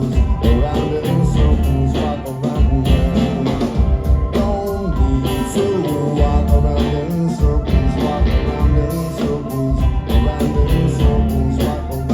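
A rock band playing live in concert: guitar and bass over drums keeping a steady beat.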